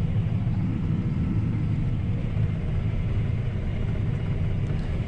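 John Deere T670i combine harvester running while cutting oats, a steady low rumble of engine and threshing machinery heard from inside the cab.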